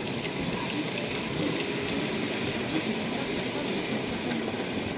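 Model container train running on the layout track through a tunnel, a steady rolling rumble with light irregular clicking from the wheels and mechanism.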